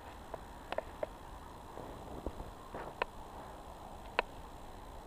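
Quiet outdoor background with about seven faint, sharp clicks scattered through it.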